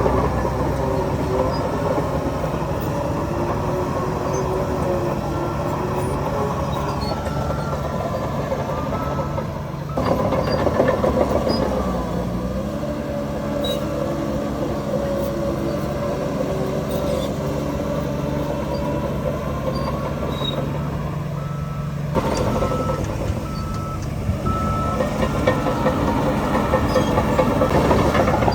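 Heavy diesel construction machinery running steadily, with a reversing alarm beeping at times. The engine sound changes abruptly about ten seconds in and again a little over twenty seconds in.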